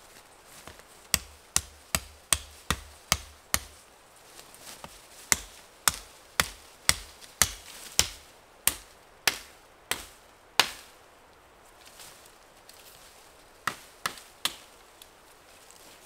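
A blade chopping through a thin sapling at its base, with sharp strokes about two a second: a run of about seven, a pause, a run of about ten, then three more near the end.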